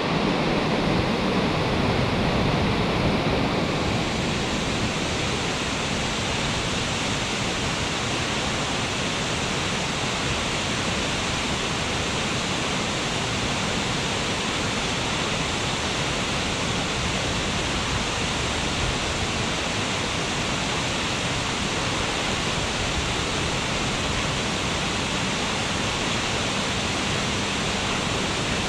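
Tall waterfall pouring down a cliff onto rocks and a rocky river: a steady, even rush of falling water, a little louder in the first few seconds.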